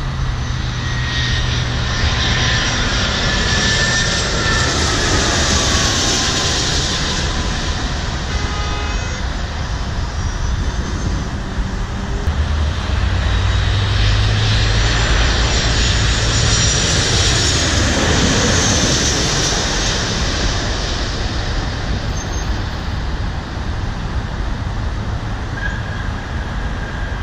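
Two jet airliners on final approach pass low overhead one after the other. Each brings a swelling rush of jet engine noise with a whine that falls in pitch as it goes by, about ten seconds apart.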